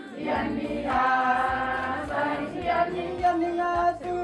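A group of women's voices singing together, holding long wavering notes in a choir-style song.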